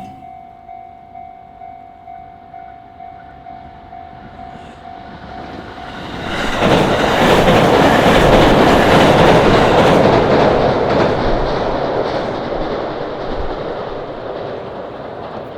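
Japanese level-crossing warning bell ringing in a steady, fast clang of about two strokes a second. About six seconds in, a train passes over the crossing with loud wheel-on-rail rumble and clatter that swamps the bell, then slowly fades.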